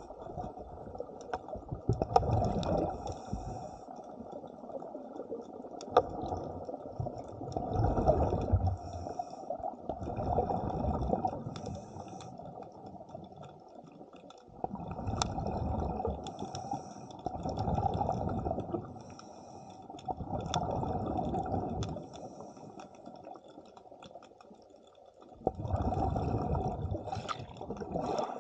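Diver's breathing regulator underwater: rough bubbling exhalations a second or two long, coming every few seconds, with quieter breaths drawn in between.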